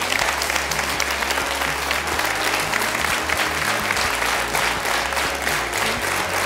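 Audience applause, many hands clapping together, with music playing underneath.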